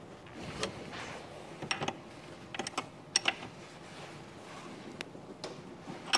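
Metal spanner clicking and tapping against a hose fitting on a Rotax 9xx engine as it is tightened with a 14 mm wrench. The clicks are small, sharp and irregular, some in quick clusters.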